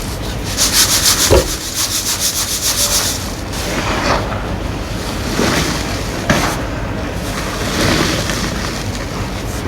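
Gym chalk being crushed and rubbed by hand: a fast, even scraping of about five strokes a second for the first three seconds, then softer crumbling with a few separate crunches.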